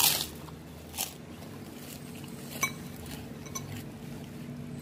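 Metal fork and spoon clinking and scraping against a ceramic soup bowl of bakso broth: a sharp clink right at the start, the loudest, then a few lighter taps, one of them ringing briefly. A steady low hum underneath.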